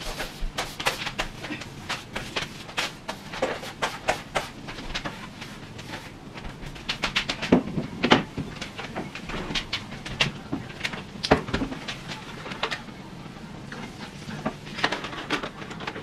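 Irregular household clatter: clicks, knocks and bumps of objects being handled and set down, with a cluster of louder knocks about halfway through.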